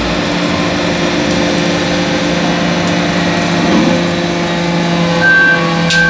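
Hydraulic briquetting press for aluminum chips running: a steady machine hum from its hydraulic power unit, with a higher whine joining about five seconds in.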